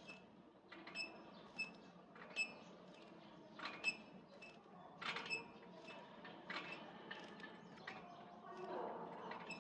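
Metal horizontal bar creaking and squeaking in its fittings as a gymnast swings round it in backward circles. Short, sharp squeaks come roughly once a second.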